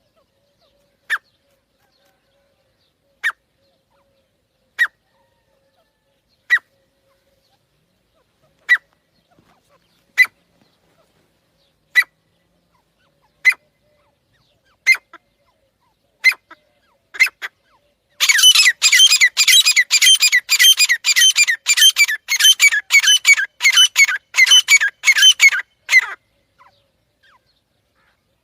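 Grey francolins calling: loud, sharp single notes spaced about every one and a half to two seconds, coming quicker, then breaking into a rapid, dense run of ringing calls for about eight seconds that stops suddenly.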